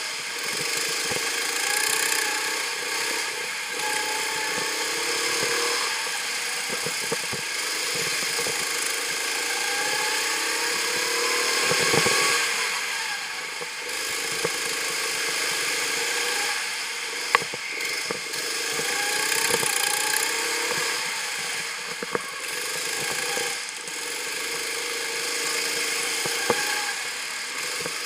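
Go-kart engine heard from the driver's seat while lapping, its pitch climbing on the straights and dropping off into the corners again and again. A few sharp knocks are heard, one a little after halfway and one near the end.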